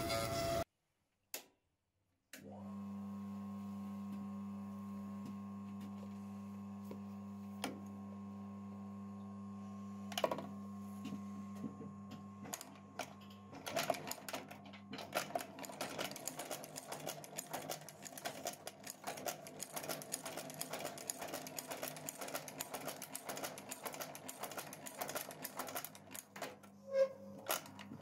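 Blake stitching machine at work on a shoe sole: after a brief silence its electric motor starts up and hums steadily. About halfway through, a fast, uneven clatter of the needle and awl stitching the sole joins the hum.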